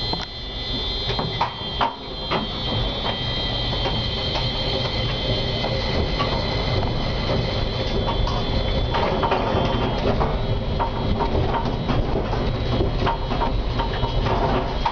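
Konstal 105Na tram running, heard from inside the driver's cab: a steady rumble with sharp clicks and knocks as the wheels pass over rail joints and points. The clicks come a few times early on and much more often from about the middle onward.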